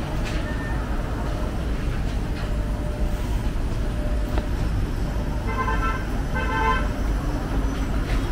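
Steady low rumble of street traffic and buses running at the kerb, with two short horn toots about six seconds in.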